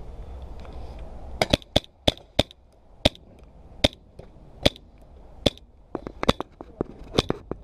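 Milsig magazine-fed paintball marker firing a string of single shots, sharp cracks at uneven spacing, about one to three a second, starting about a second and a half in. The shots are weak because the marker's air tank is almost empty.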